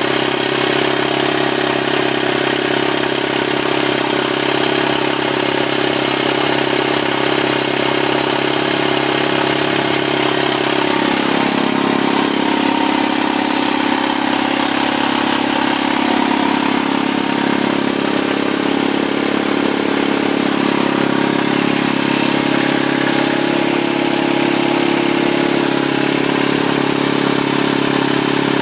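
Onan 7.5 MDJE marine diesel generator engine running steadily at a constant speed. Its note shifts slightly about eleven seconds in.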